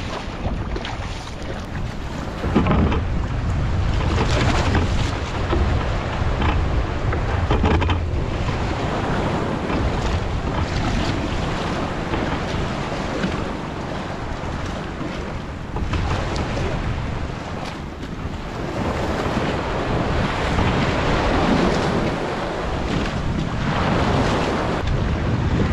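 Wind buffeting the microphone over the wash of sea waves and water splashing against a small wooden boat, swelling and easing in gusts.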